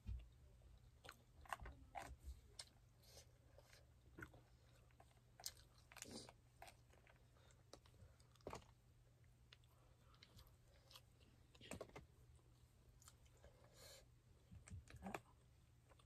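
Faint chewing of food with scattered short clicks and scrapes, as spoons work the rice in a foil takeaway tray.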